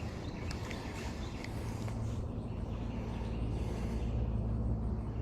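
Steady outdoor background noise, a low rumble under a soft hiss, with a few faint ticks in the first second and a half.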